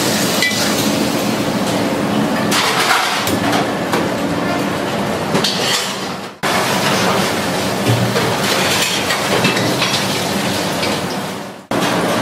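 Metal utensils scraping and clinking against a wok and a steel serving tray, over steady, loud kitchen noise with a low hum. The sound breaks off abruptly about halfway through and again near the end.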